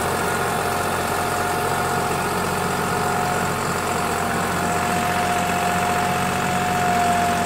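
Deutz-Fahr Agromaxx 45 tractor engine running steadily under load while pulling a nine-tine cultivator through dry soil, with a steady whine on top of the engine note.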